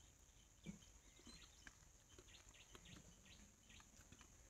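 Near silence: faint outdoor background with a steady high hiss and a few soft scattered ticks.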